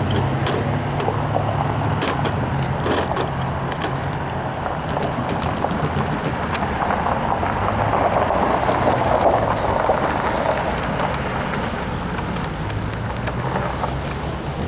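Union Pacific freight train rolling past: a steady rumble of wheels on rail, with scattered sharp clicks and bangs from the cars.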